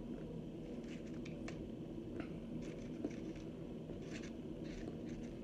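Chunks of homemade cornstarch-and-water crunching and crumbling: short dry crackly crunches that come irregularly, several a second at times, over a steady low hum.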